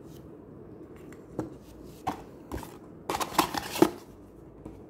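Small plastic figure parts being handled and set down on a tabletop: light clicks and taps, a few scattered ones, then a quick cluster of louder taps near the end.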